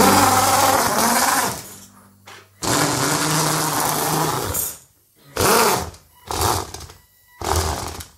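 Car windshield-wiper motor driving the track of a homemade cardboard model snowmobile over a wooden floor. It runs in two stretches of about two seconds each, then in three short bursts about a second apart, stopping abruptly each time.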